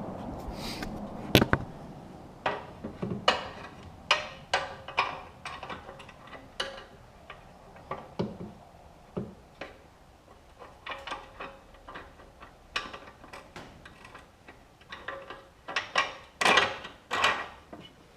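Irregular clicks, taps and knocks of metal hardware being handled: a bolt being fitted through the hydraulic actuator mount of a boat's holeshot plate. The strikes come in short clusters and are busiest near the end.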